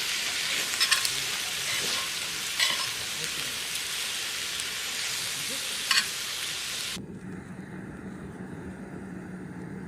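Food sizzling in a hot pan, a steady hiss with a few sharp clicks of utensils. About seven seconds in it cuts off abruptly to a much quieter background with a steady low hum.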